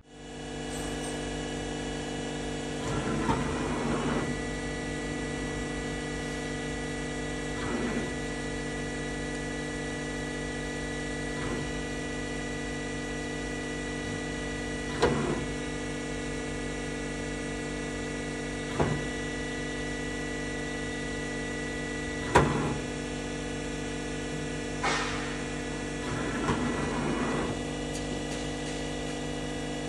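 Enshu E130 vertical machining center running, a steady multi-tone machine hum. Every three to four seconds comes a short knock or brief whir as the table traverses and stops, the sharpest about twenty-two seconds in.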